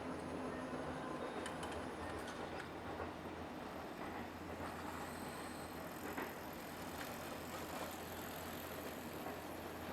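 Steady background noise with a constant low hum and an even hiss, with no distinct events.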